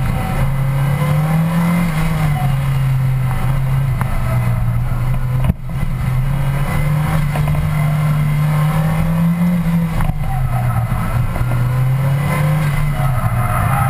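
Engine of a mid-engine car, heard from on top of its louvered engine lid, working hard through an autocross run, its revs climbing and dropping as it accelerates and lifts between corners. A single sharp click cuts in about five and a half seconds in.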